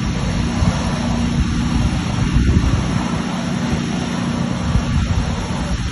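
Jet engines of a narrow-body airliner running steadily on the runway as it lines up: a steady hum over a heavy low rumble.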